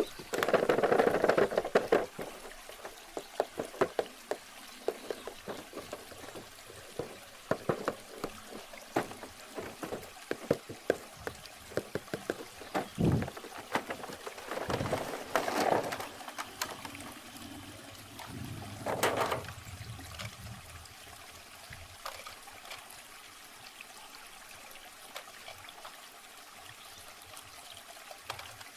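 Trickling stream water runs steadily under many irregular clicks and rustles of a plastic toy and its packaging being handled, with a few louder rustling bursts. The clicks thin out toward the end, leaving mostly the water.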